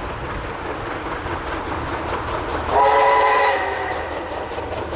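NZR Wab-class 4-6-4T steam tank locomotive working toward the listener, its exhaust and running gear making a steady rumble. A little before the middle it sounds its steam whistle once, a chord of several tones held about a second.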